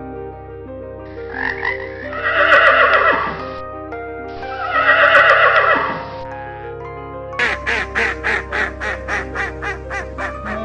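Animal calls over steady background music: two long, loud calls, then a quick run of short calls, about five a second, that slowly grow quieter.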